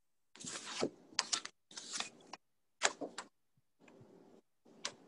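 Utensils scraping and clinking as cupcake batter is scooped out of a mixing bowl, in short bursts with a few sharp clicks, the sound cutting in and out abruptly between them.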